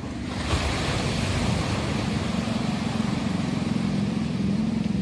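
Ocean surf breaking and washing up the beach, swelling about half a second in, over the low steady hum of an engine running nearby.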